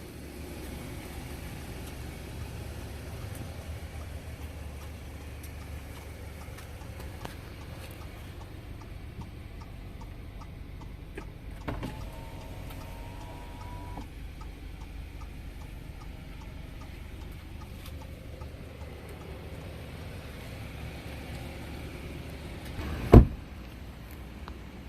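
Audi A3's engine idling with a steady low hum. About halfway through a short pitched tone sounds for about two seconds, and near the end there is a single loud thump.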